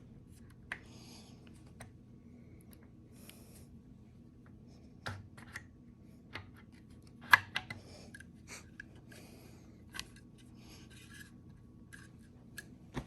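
Scattered light clicks and scraping of valve lifters being handled and slid into their lifter trays, with one sharper click about seven seconds in.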